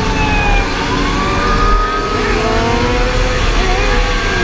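A group of motorcycles, sport bikes and a dirt bike among them, riding together at speed. Several engines are heard at once, their pitches rising and falling as the riders work the throttles, over a steady rush of noise.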